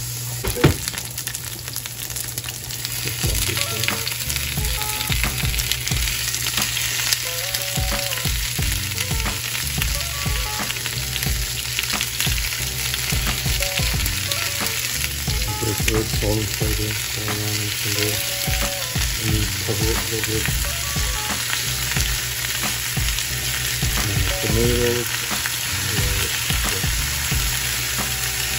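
Onion rings and whole trout sizzling in olive oil in a frying pan, a steady crackling hiss, with scattered clicks and knocks from handling the pan. There is a sharp knock about a second in.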